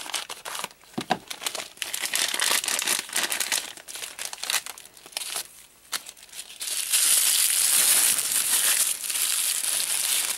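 Crinkling of a plastic blind bag being handled and opened, in irregular bursts. From about seven seconds in, louder, denser rustling of the white tissue paper wrapped around the figure's pieces inside.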